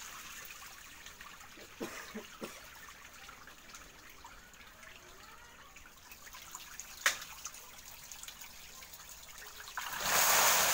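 Water trickling and sloshing in a biofloc tank packed with native magur (walking catfish) at harvest, with a single sharp click about seven seconds in. Near the end a much louder rush of splashing water sets in.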